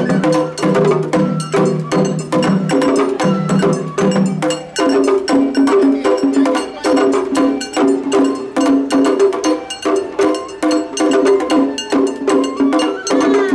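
Japanese festival hayashi music: a fast, steady run of percussion strikes over a sustained melody. A lower part drops out about five seconds in.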